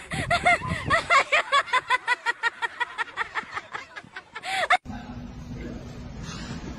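High-pitched snickering laughter, a fast run of short 'heh' sounds at about five a second, which cuts off suddenly about five seconds in. A steady low hum with background noise follows.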